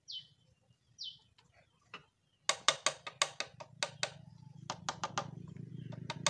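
Two short, falling bird whistles, then from about two and a half seconds a quick, irregular run of sharp metallic clicks as a screwdriver works against the Honda Supra's engine parts, checking the connecting rod for play. The rod's big-end bearing turns out to be badly worn. A low hum rises underneath the clicks.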